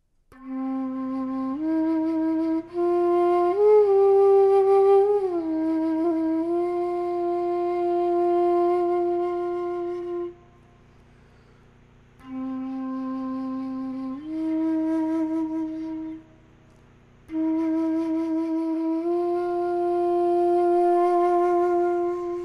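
Bansuri (Indian bamboo flute) music: long held notes with occasional slides between pitches, pausing twice briefly.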